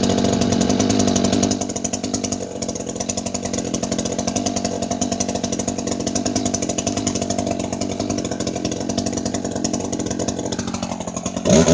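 Chainsaw engine running steadily with a fast, even flutter, dropping a little in level after about a second and a half. A sudden louder sound comes right at the end.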